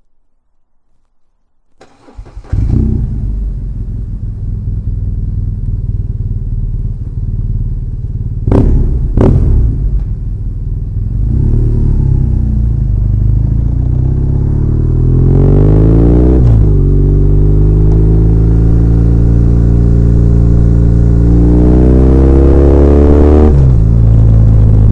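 BMW R1200R air/oil-cooled boxer-twin engine starting after about two seconds of quiet, then idling, with two short sharp clicks about nine seconds in. From about fourteen seconds the engine pulls away, its pitch rising through a gear, dropping at a shift, and rising again to another shift near the end.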